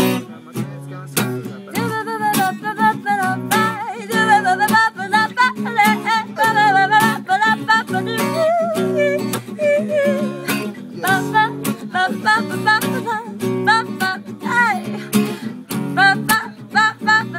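Acoustic guitar strummed in a steady rhythm, with wordless singing over it.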